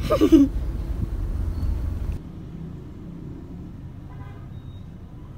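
Low, steady rumble of a car heard from inside the cabin. After about two seconds it cuts off sharply to a quieter, steady low hum.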